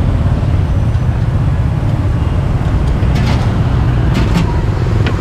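Steady low rumble of street traffic and engines, with a few light metal clicks of barbecue tongs against the grill about three and four seconds in.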